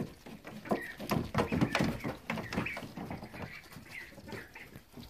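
Rouen, Welsh harlequin and silver appleyard ducklings peeping over a busy run of quick clicks and rustles as they feed and move about in wood shavings.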